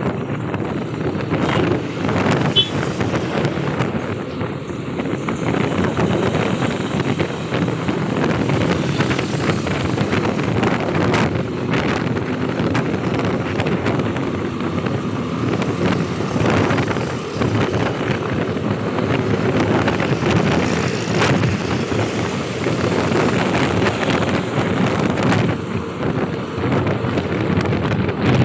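Wind rushing over the microphone of a camera on a moving motorcycle, with irregular gusts, over a steady bed of engine and road noise.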